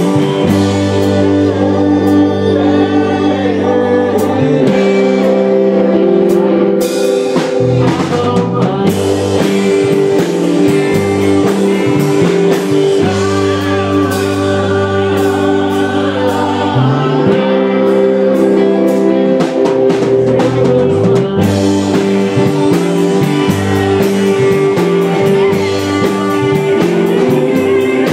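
Live band playing: a man singing into a microphone over electric guitars, bass guitar and drum kit, with long held chords and steady cymbal and drum hits.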